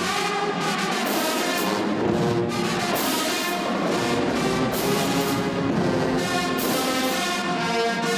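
Band music led by brass instruments, sustained chords with an accent about once a second.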